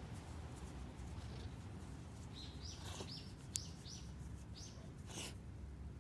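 A small bird chirping about five times in quick succession, with a sharp click among the chirps and a short hissing burst near the end.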